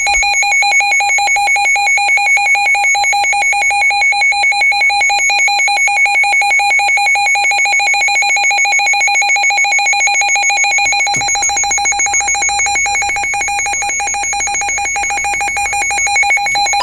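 Emergency Alert System attention signal: a loud, steady alert tone with a fast flutter, held for the whole stretch and cutting off abruptly at the end, as it does just before the spoken warning.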